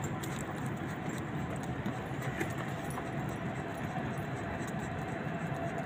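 Steady city background noise with light metallic jingling and clicking.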